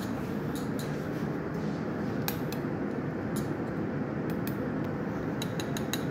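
Pastry brush clicking and tapping against a small ceramic bowl of egg wash: a scatter of light clicks, more of them near the end, over a steady background hum.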